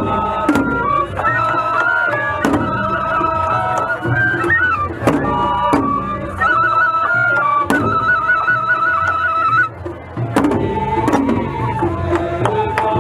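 Japanese festival music (matsuri-bayashi): shinobue bamboo flutes playing a high, trilling melody over loud strikes on a large taiko drum, about one strike a second. The flutes break off briefly a little under ten seconds in.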